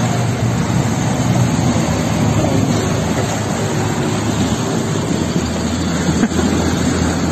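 Fast-flowing floodwater rushing across a road, a loud, steady roar, with a brief knock a little after six seconds in.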